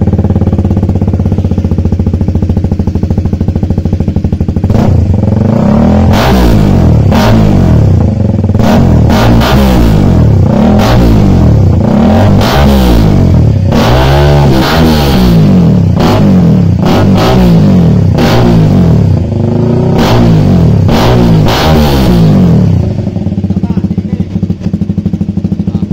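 KTM Duke 390's single-cylinder engine running loud through an aftermarket VMAX full exhaust system. It idles at first, is revved in repeated quick blips from about five seconds in until about twenty-two seconds, then settles back to idle.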